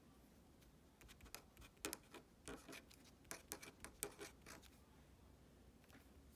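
Pen writing on paper, a run of short scratchy strokes that starts about a second in and stops a little past halfway.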